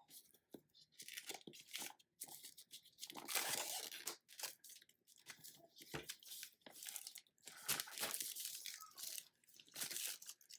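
Product packaging being torn and opened by hand: irregular bursts of tearing and crinkling, the longest about three seconds in and again near the end.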